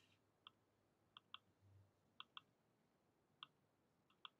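Near silence broken by about eight faint, sharp computer clicks, several in quick pairs, as a spreadsheet formula is entered.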